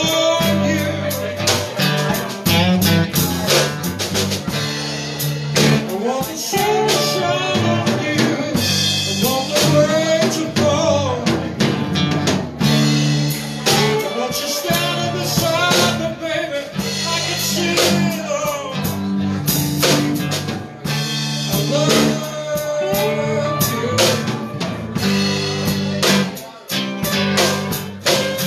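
Live blues band playing: electric guitars and bass guitar over a drum kit, heard through the room with the stage amplification.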